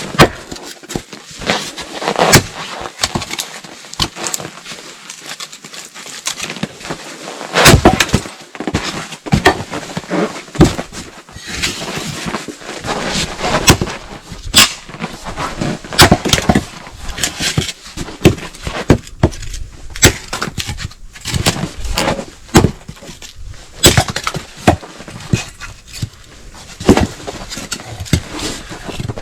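Wood being broken up by hand: an irregular run of sharp cracks and knocks, loudest about eight seconds in.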